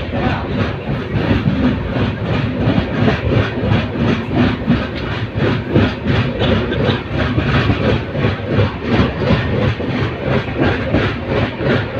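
Passenger train running at speed, its wheels clattering rhythmically over the rail joints.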